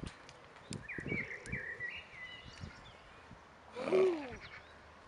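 A horse's soft hoof thuds on arena sand while a songbird chirps. About four seconds in comes the loudest sound: a short animal call that bends down in pitch.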